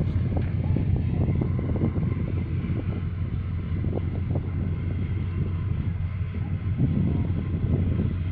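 Wind buffeting the microphone: a steady low rumble with irregular gusty flutter over open water.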